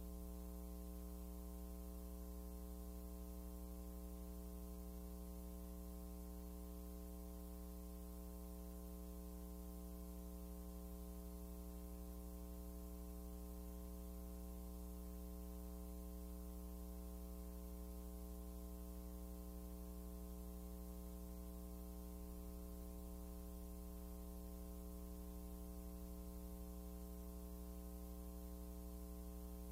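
Steady electrical hum with a stack of evenly spaced overtones, unchanging throughout; nothing else is heard.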